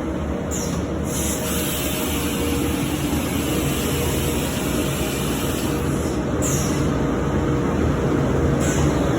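CNC woodworking machining center running, its cutter working a wooden door jamb with a steady machine drone. A brighter hiss of cutting comes in about a second in and drops out around six seconds, with shorter hissing bursts near the start and end.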